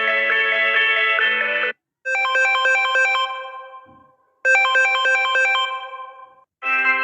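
Mobile phone ringtones played one after another: a looping melody cuts off about two seconds in, then a short bright chime phrase sounds twice, each time fading away, and another ringtone melody starts near the end.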